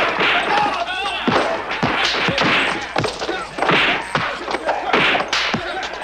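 Fight-scene punch and body-blow sound effects: a dozen or so sharp hits in quick succession from a brawl, with a brief shout about a second in.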